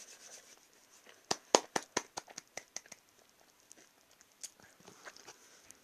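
Crackling of a chocolate Easter egg's wrapper being handled: a quick run of sharp crackles about a second and a half in, then a few fainter ticks.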